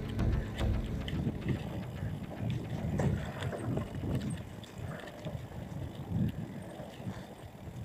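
Wind buffeting the camera microphone over the rattle and clatter of a mountain bike rolling down a bumpy dirt trail, with scattered knocks. It gets quieter towards the end.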